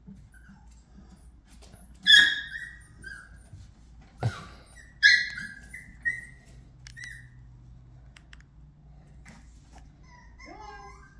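Pomeranians yelping and whining in high voices: two loud yelps about two and five seconds in, a sharp thump just after four seconds, a few smaller yips, and rising-and-falling whining near the end.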